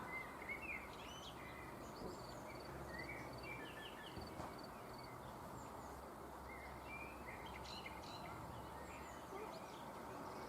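Small birds chirping in short, quick calls, with a few rapid series of high pips, over a steady background noise.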